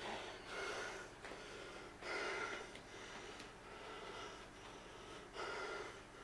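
A man breathing heavily through his mouth: about six breaths in and out, each a short noisy rush of air, as he catches his breath after a bout of distress.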